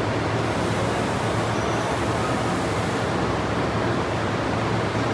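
Steady low hum with an even rushing noise from a running induction gold melting furnace and its cooling equipment.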